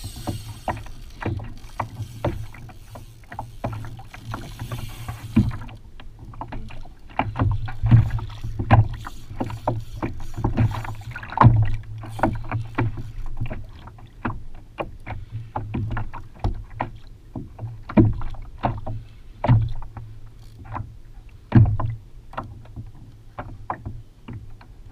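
Choppy water slapping against a kayak's hull, a string of irregular sharp knocks and splashes over a steady low rumble.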